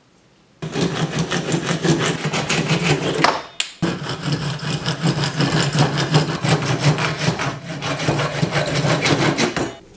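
Hand saw cutting through PVC pipe held in a bench vise: steady back-and-forth rasping strokes that start about half a second in, pause briefly around the middle, and stop just before the end.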